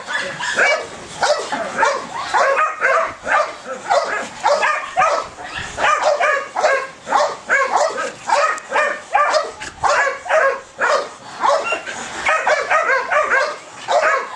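Belgian Malinois giving rapid, high-pitched yelping barks, about two a second without a break, the excited vocalising of a dog in high drive for its ball.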